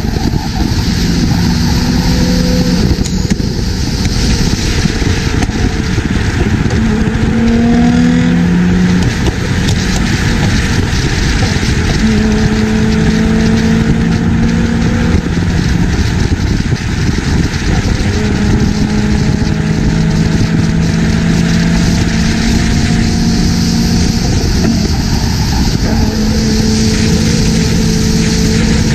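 Cars at highway speed: a loud, steady rush of wind and road noise with the drone of engines cruising, their pitch holding for a few seconds at a time and then shifting.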